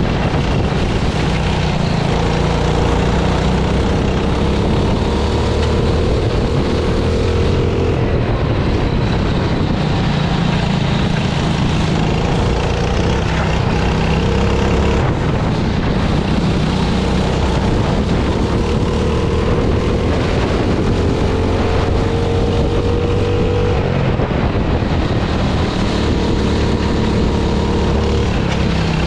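F400 kart's engine running hard onboard, its pitch climbing four times as it accelerates and dropping back between climbs, over a steady rush of wind and spray noise.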